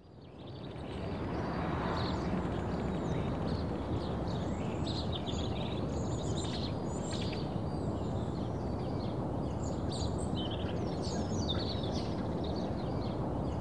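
Outdoor countryside ambience fading in over the first second or two: many birds chirping over a steady low background noise.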